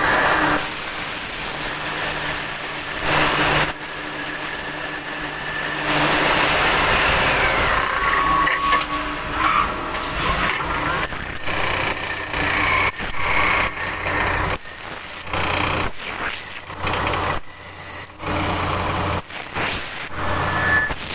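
Tsugami CNC lathe running: a dense machining noise with a steady hum and brief high-pitched whines. About halfway through it turns choppy, broken by many short knocks and sudden gaps.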